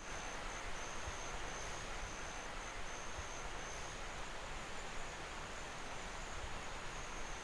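Outdoor nature ambience: a high, thin insect trill, cricket-like, that drops out briefly a few times, over a steady hiss.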